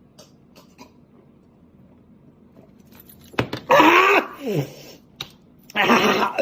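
Quiet room tone with faint clicks, then about halfway through a person's loud wordless throat-clearing and grunting sounds, twice, in reaction to drinking bitter gourd juice.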